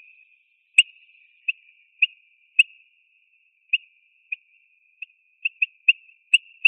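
Eurasian bullfinch calling: about a dozen short, high piping notes, all at one pitch and irregularly spaced, with a quicker run of notes near the end.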